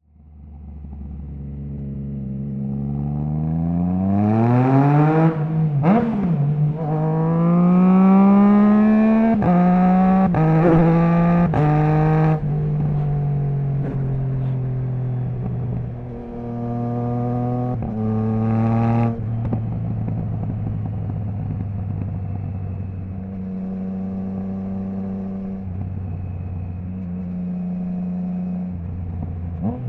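Triumph Trident 660's inline-three engine through a Zard stainless full exhaust with the baffle removed, accelerating hard through the gears. Rising revs are cut by quick upshifts, with sudden drops in pitch about five seconds in and again at about nine, ten and twelve seconds, typical of a quickshifter. After one more pull and shift it settles to steadier, lower-revving cruising with small throttle changes.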